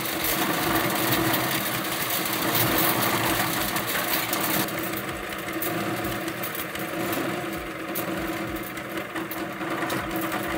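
Engine-driven hammer mill running steadily while grinding dry seed pods, a constant machine hum with rapid clicking and rattling of the pods being smashed. It gets a little quieter about halfway through.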